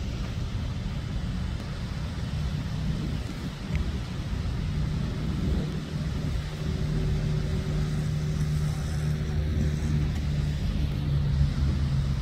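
Steady low rumble of a moving road vehicle heard from inside, engine and road noise, with a low steady engine hum coming in about three seconds in; it cuts off abruptly at the end.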